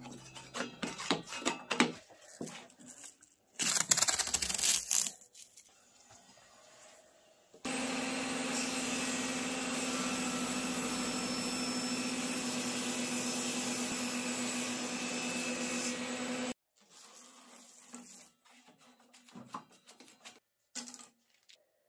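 A wooden stick scraping and tapping on a table saw's metal top and throat plate, with a brief loud burst of scraping noise about four seconds in. Then the table saw runs with a steady hum for about nine seconds and cuts off abruptly.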